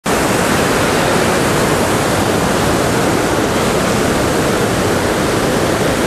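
Swollen, muddy river in spate rushing and churning over rocks: a loud, steady rush of high flood water, the stream running high because the dam upstream has been opened after heavy rain.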